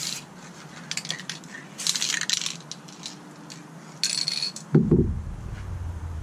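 Montana Hardcore aerosol spray paint can spraying in several short hissing bursts through a wide transversal cap, then a heavier knock about five seconds in as the can is set down on the table.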